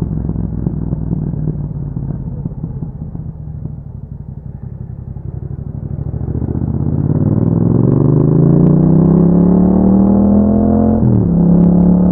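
Yamaha MT-07's parallel-twin engine through an Akrapovic exhaust, first running at low revs with an uneven rumble, then revving up steadily under acceleration. Near the end the pitch drops sharply for an upshift and picks up again.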